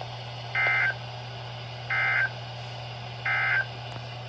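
NOAA Weather Radio SAME end-of-message data bursts: three short bursts of warbling digital tones about 1.3 seconds apart, marking the end of the broadcast test. A steady low hum runs underneath.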